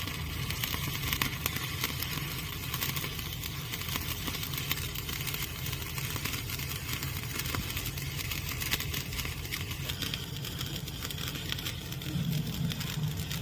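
Stick-welding arc on a 6013 electrode crackling steadily, with a steady low hum underneath.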